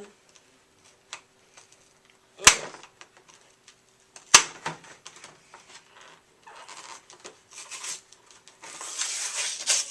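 Scissors cutting into the camcorder's packaging: two sharp snips about two seconds apart, then the packaging rustling and scraping as it is worked open, louder near the end.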